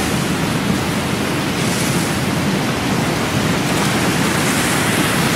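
Steady roar of breaking ocean surf, water rushing as a wave curls and crashes.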